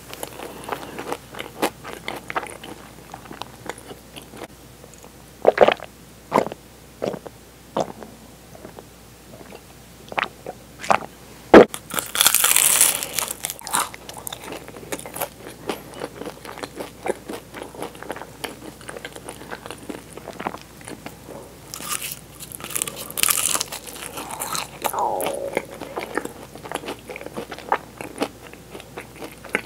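Eating Portuguese egg tarts close to a clip-on microphone: bites into the flaky puff-pastry shells crackle and crunch, between stretches of softer chewing. There is one sharp loud snap just before halfway, with longer crackly bites soon after and again about three-quarters of the way through.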